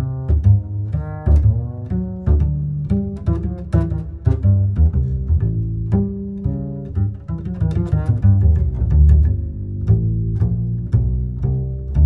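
Background music on low strings, bowed and plucked, with a quick run of short notes.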